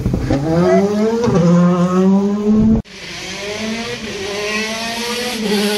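Rally car engine accelerating hard, its revs climbing and dropping back at each gear change. About halfway through the sound cuts off abruptly and a fainter rally car engine is heard revving up through its gears.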